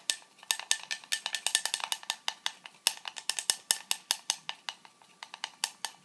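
A stirrer clinking against the inside of a drinking glass in quick, irregular taps, several a second, each with a brief glassy ring. It is mixing a thick polyvinyl alcohol and phosphoric acid gel electrolyte that is still a little chunky.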